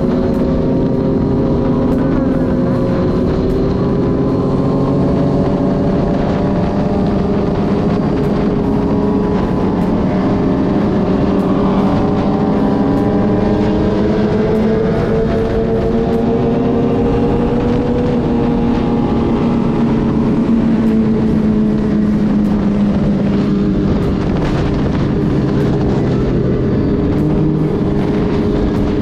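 Several sport motorcycles running together, their engine notes overlapping at different pitches and drifting slowly up and down.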